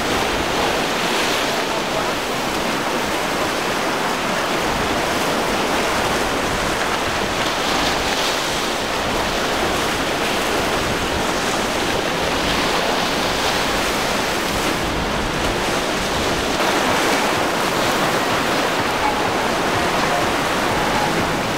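Breaking waves and surf in rough water, a steady rush of white water that swells every few seconds.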